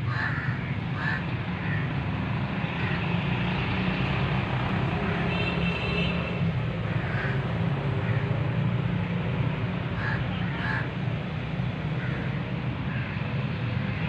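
A steady low outdoor rumble with short, high calls over it every second or two.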